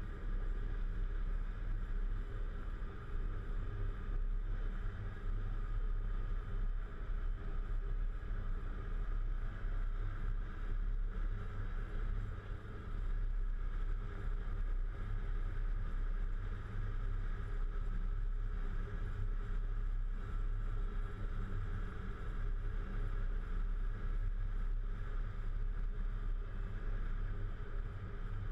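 Volvo FH 440 truck's diesel engine running steadily under way, a low, even drone with a faint steady high whine above it.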